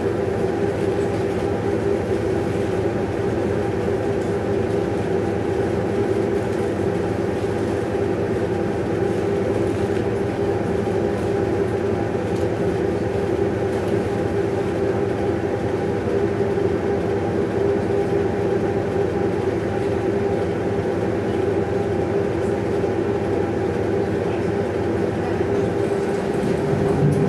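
Electric tram standing still with its onboard equipment running: a steady hum with a few constant tones, heard from inside the tram.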